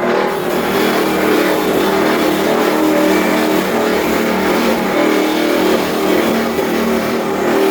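Wood log-grating (sawdust crusher) machine driven by a 15 HP three-phase electric motor, running steadily: a sustained mechanical hum with a rushing grinding noise over it.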